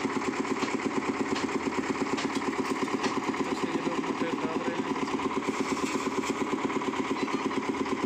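Engine of a concrete mixer with a lift hoist running steadily, with an even chugging pulse of about six beats a second.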